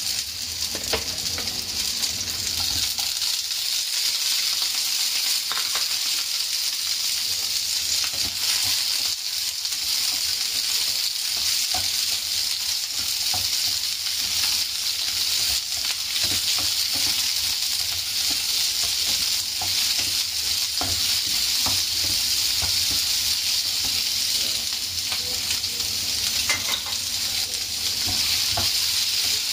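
Onion and bell pepper pieces sizzling steadily as they fry in oil in a pan, with scattered light scrapes and taps of a spatula stirring them.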